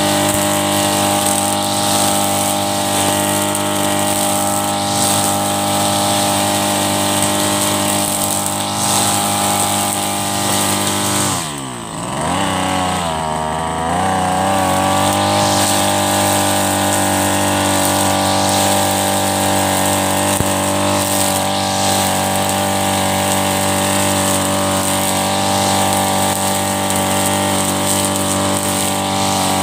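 Backpack brush cutter's Mitsubishi TB43 two-stroke engine running at high speed while it cuts grass. About twelve seconds in it drops briefly to idle, then revs back up about two seconds later. This is a test run after the gear head was refilled with grease.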